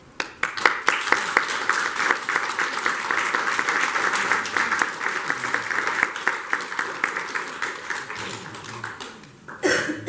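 Audience applauding: many hands clapping, starting abruptly and thinning out near the end, followed by a brief loud sound just before the end.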